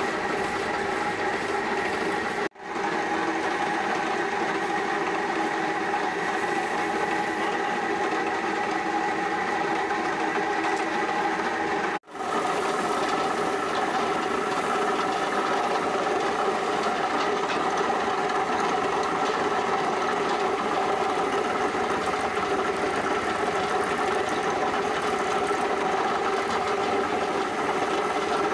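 Wood lathe running steadily with a constant motor hum. The sound drops out for an instant twice, about two and a half and twelve seconds in.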